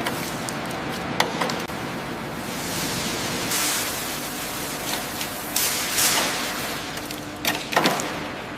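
Steady hissing noise with two louder hissing swells, about three and a half and six seconds in, and a few sharp knocks, one a little after the start and a cluster near the end.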